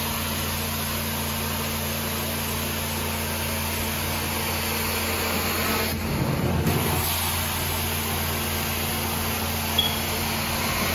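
Carpet extraction wand pulling water out of carpet: a steady suction hiss over the constant hum of the extraction machine, with a brief change in the sound about six seconds in.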